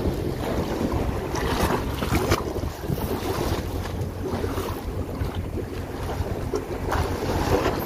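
Wind buffeting the microphone in a steady low rumble, over the wash of sea waves.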